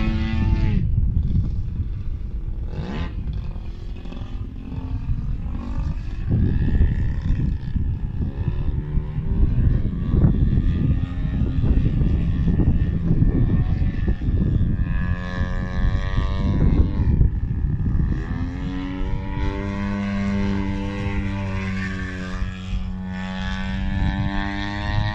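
Extreme Flight Slick 580 104-inch RC aerobatic plane flying overhead, its engine and propeller note rising and falling in pitch with throttle changes and passes. It is steadiest for a few seconds near the end.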